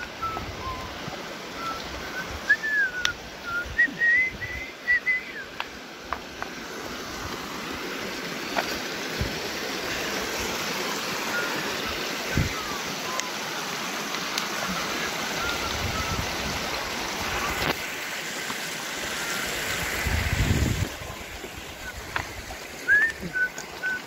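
Shallow mountain creek running and splashing over rocks, growing louder through the middle and then dropping back. High, gliding whistled notes come in the first few seconds and again near the end, over scattered low thumps.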